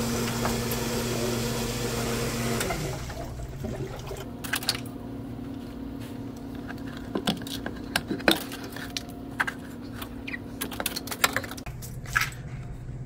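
Hoshizaki ice machine running, its water pump humming steadily with water flowing, until the sound cuts off about three seconds in as the machine is switched off. After that come scattered sharp clicks and knocks of handling over a faint hum.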